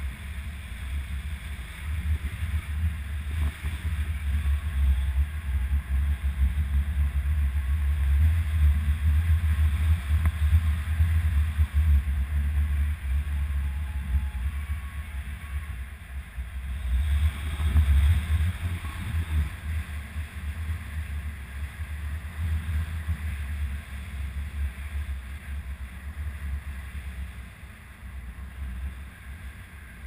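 Wind buffeting a camera microphone in flight under a tandem paraglider: a rough, uneven low rumble that swells a little past the middle and eases toward the end.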